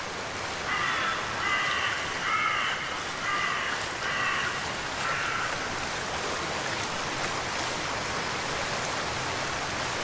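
Birds call repeatedly in short, harsh, pitched calls through the first half, over a steady hiss of water. The calls stop about halfway through and the water hiss carries on alone.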